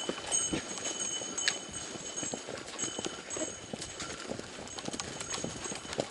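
Dosanko horse walking up a dirt forest trail, its hooves clip-clopping in an uneven run of soft footfalls.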